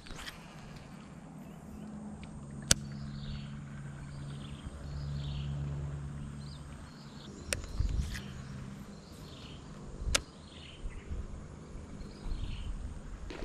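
A bird repeating a short, high, falling call roughly once a second, over a low droning hum that fades out about nine seconds in. Three sharp clicks cut through, the loudest about three seconds in.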